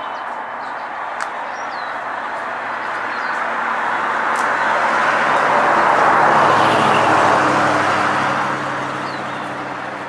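A road vehicle passes: the noise of its tyres and engine swells over several seconds, loudest about six seconds in, with a low engine hum, then fades away. A few short bird chirps, one near the start and one near the end.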